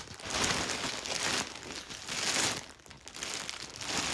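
Plastic packaging crinkling and rustling as a package is opened by hand, in several bursts with short pauses between.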